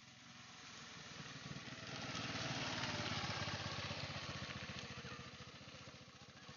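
Motor scooter engine running as it rides past: it grows louder as it approaches, is loudest about two to four seconds in, then fades as it moves away.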